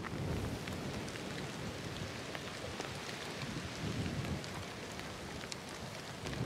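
Storm wind rushing and buffeting the microphone, a low rumble that swells and eases, with scattered light ticks over it.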